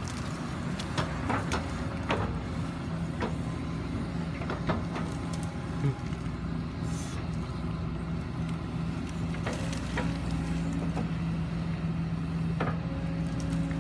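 Kobelco SK140-8 excavator's diesel engine running at a steady pitch, with scattered sharp clicks and knocks.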